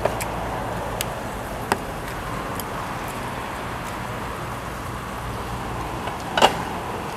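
Steady rushing background noise with a few sharp clicks or taps; the loudest click comes a little after six seconds in.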